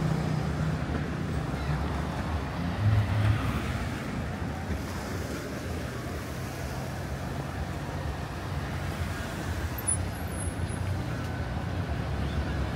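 Road traffic running steadily: a constant low hum of passing cars, swelling briefly about three seconds in.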